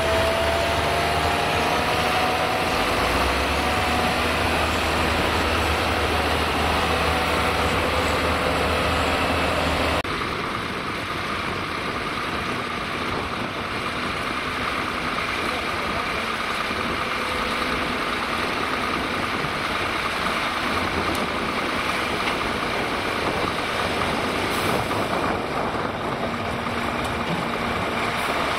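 Scania P440 6x6 dump truck's diesel engine running as the loaded truck drives slowly through mud, its pitch gliding. After a sudden cut about ten seconds in, the engine runs steadily while the KH-Kipper tipper body rises on its hydraulics and the sand load slides out.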